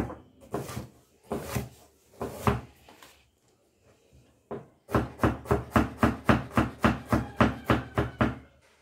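Kitchen knife chopping onion on a wooden chopping board: a few spaced strokes, then after a short pause a fast, even run of about four to five chops a second.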